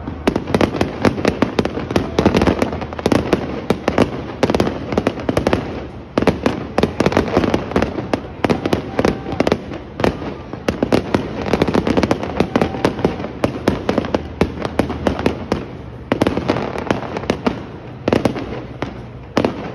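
Aerial fireworks display going off in a dense, continuous barrage of bangs and crackles, coming in waves and thinning out near the end.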